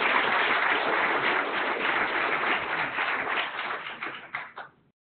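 Audience applauding: a burst of dense clapping that thins out to a few last claps and stops shortly before the end.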